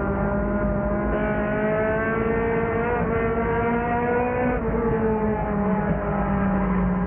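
Race car engine heard from inside the car, running hard with its pitch climbing slowly for a few seconds. The pitch drops suddenly about four and a half seconds in, then holds steady.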